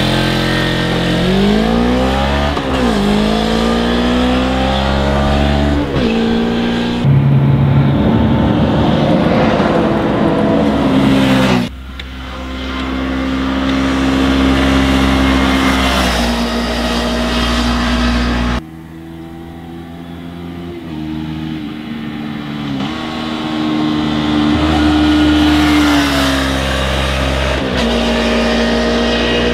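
Suzuki GSX250R's parallel-twin engine accelerating through the gears, its pitch climbing and then dropping at each upshift. The sound comes in several short stretches with abrupt cuts between them.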